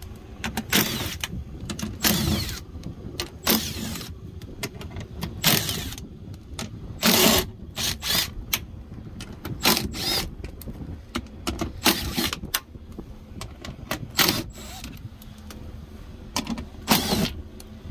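A power driver running in about ten short, irregular bursts, with clicks and small knocks between them, as the 10 mm screws around a car door trim panel are backed out.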